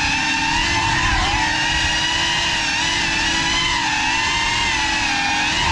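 Geprc Cinelog35 cinewhoop FPV drone on 6S, its brushless motors and ducted propellers giving a steady high whine. The pitch rises and falls slightly with the throttle as it flies.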